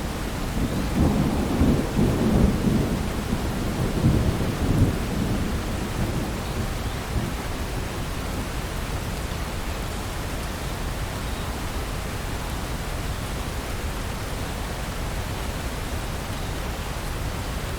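Steady rain falling, with a low rumble of thunder that swells about a second in and dies away after about six seconds, leaving the rain alone.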